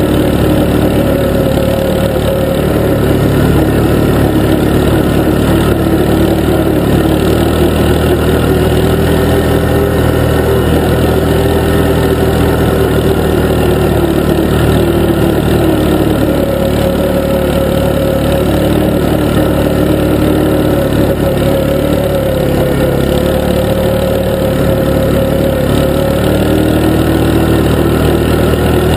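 ATV engine running at a steady trail speed, close and loud, as a constant drone whose pitch rises and falls only slightly.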